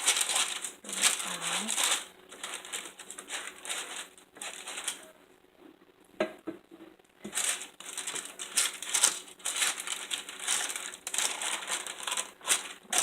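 Wet spatula spreading thick cake batter across a parchment-lined pan, a run of scraping strokes with the paper crinkling, with a short pause about halfway through.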